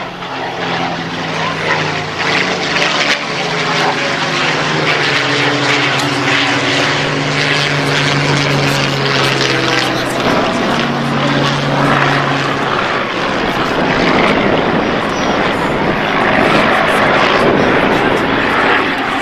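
Piston engines of several World War II propeller fighters flying overhead in a mock dogfight. A steady engine drone grows louder over the first few seconds and turns rougher and noisier in the last third as aircraft pass closer.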